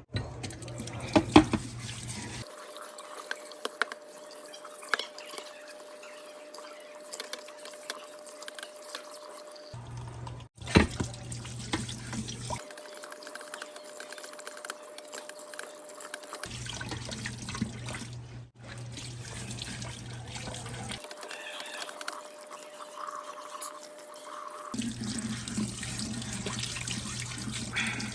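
Water running from a tap into a sink while an espresso portafilter is rinsed of machine-cleaning detergent, with a few knocks near the start.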